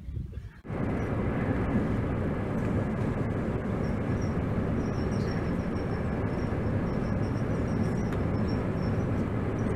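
Steady rumble and rush of a train in motion, heard from inside the carriage. It starts abruptly about a second in and holds at an even level.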